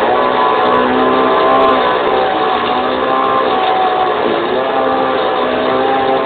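Small petrol engine running steadily at an even speed, its pitch wavering slightly, with a brief dip about four seconds in. An old recording that sounds dull, with no treble.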